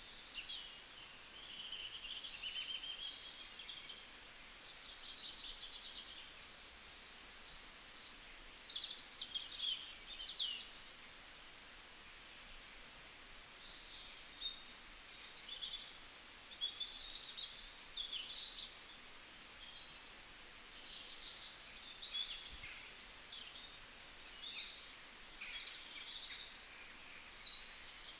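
Birds chirping and singing, many short high calls and trills overlapping, over a faint steady hiss.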